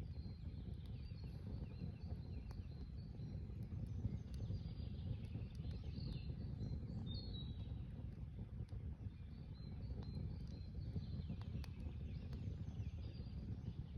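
Riverside ambience: a steady low rush of flowing river water, with small birds chirping on and off and occasional faint crackles from a campfire.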